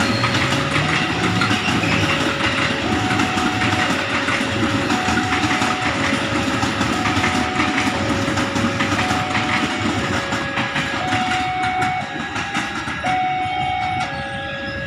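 KRL Commuter Line electric multiple-unit train running along the tracks with wheel clatter on the rails. Through it, a level-crossing warning alarm alternates between two tones, switching about once a second.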